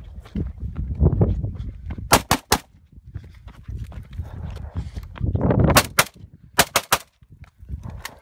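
Rifle shots from a 5.45×39 Kalashnikov, fired rapidly in short strings of two or three, about nine shots in all. Between the strings there are heavy running footsteps and scuffing on dry dirt.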